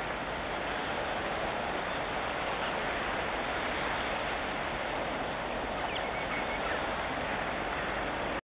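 Steady wash of surf on the shore with some wind, cutting off abruptly at the very end.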